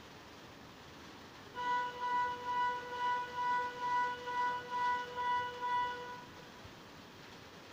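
A pitched electronic beeping tone, pulsing about twice a second for ten beeps over about four and a half seconds and then stopping, over faint steady hiss.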